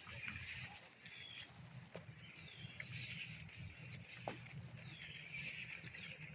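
Goats browsing acacia leaves: faint scattered clicks and snaps of leaves and stems over a low steady hum, with short high chirps throughout.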